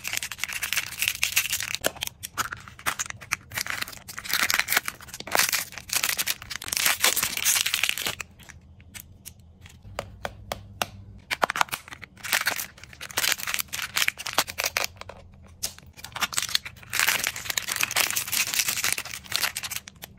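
Thin clear plastic wrappers crinkling and tearing as small toy figurines are unwrapped by hand, in long crackly bursts with a short lull about halfway through.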